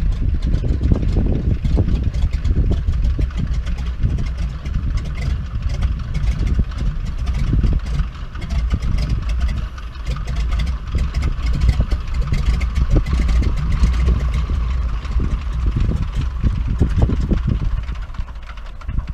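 Radial-engined floatplane idling as it taxis on its floats, a steady low engine sound with wind buffeting the microphone.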